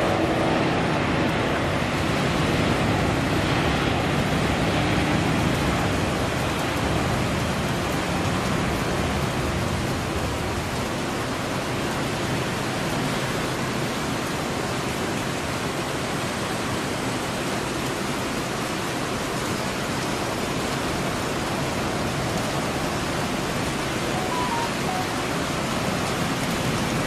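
Jet roar from an Airbus A350-941's Rolls-Royce Trent XWB engines at takeoff thrust, strongest with a deep rumble over the first several seconds and thinning slowly as the aircraft climbs away. A steady rain-like hiss runs under it throughout.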